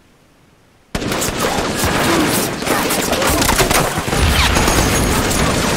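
Battle gunfire from a war drama's soundtrack: after about a second of quiet, many guns open fire at once in a loud, dense, continuous volley, with deep booms mixed in past the middle.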